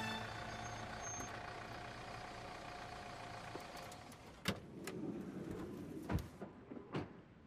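A car's engine running steadily, then cutting off about three and a half seconds in; car doors are then unlatched and pushed open, with sharp clicks and a low clunk.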